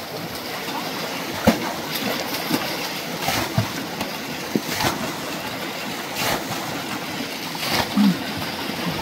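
Splashing in a shallow, partly drained river pool as people wade and catch fish by hand: several sharp splashes over a steady rush of water.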